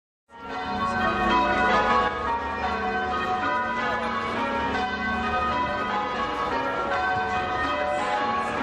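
Church bells ringing changes, many bells struck one after another so their ringing notes overlap in a continuous peal. It comes in quickly just after the start.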